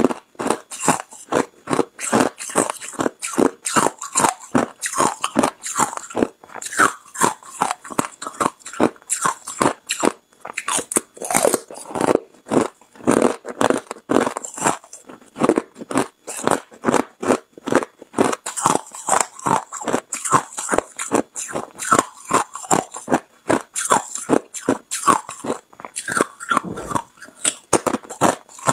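A person crunching hard ice in the mouth, close to a clip-on microphone: a quick, steady train of crisp crunches, a few each second.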